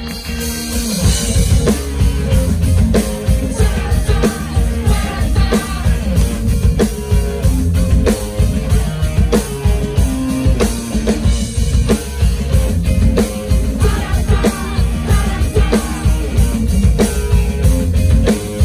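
Live rock band playing at full volume: drum kit keeping a steady beat over electric guitar and bass. The full band comes in right at the start.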